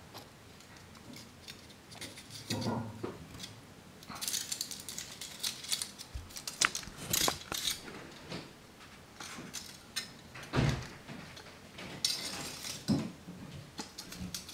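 Aluminium foil pie dishes and foil rings on springy wire being handled and bent into position: irregular crinkling and light metallic clicks, with a couple of soft bumps.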